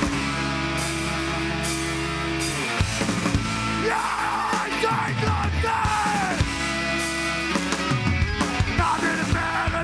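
Live punk band playing loud: distorted electric guitars and bass hold ringing chords. The singer yells over them from about four seconds in, and the drums come back hard near the end.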